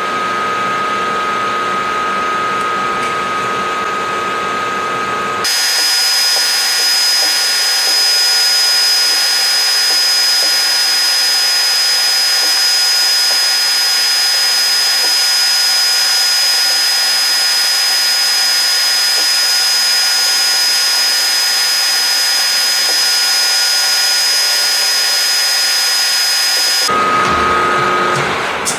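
Milling machine spindle running while a drill bit drills into a metal part. It starts as a steady whine; about five seconds in the sound switches abruptly to a louder hiss with a high whine that holds for about twenty seconds, then drops back to the first whine and stops near the end.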